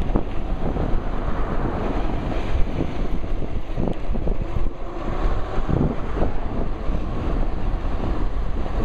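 Wind rushing over a shirt-pocket camera's microphone on a moving electric bike: a steady low rumble with frequent gusty buffets.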